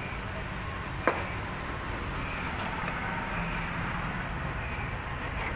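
One sharp click about a second in, as the metal ribs of an automatic umbrella are handled, over a steady background rumble.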